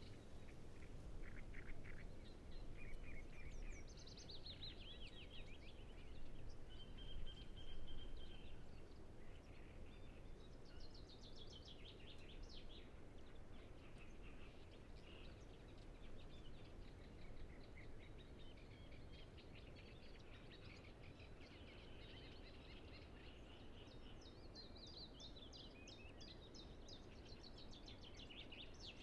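Great reed warblers and other songbirds singing faintly, with repeated trilled phrases, some sweeping down in pitch, over a steady low rumble.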